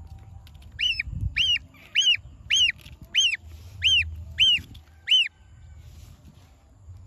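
Gosling peeping: eight short, high calls, each rising then falling in pitch, a little under two a second, starting about a second in and stopping about five seconds in.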